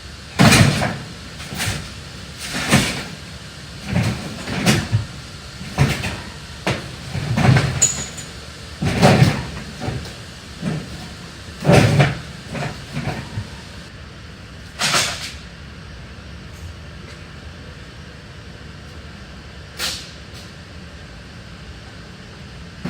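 Pieces of scrap metal being thrown onto a pile, landing with loud clanks and crashes in quick succession for about fifteen seconds, then a single one near the end.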